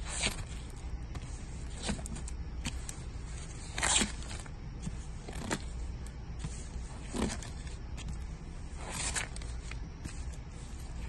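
Vinyl LP albums in plastic outer sleeves being flipped through one at a time: a string of short sliding swishes and scrapes of sleeve against sleeve, about one every second or two, the loudest about four seconds in, over a faint low hum.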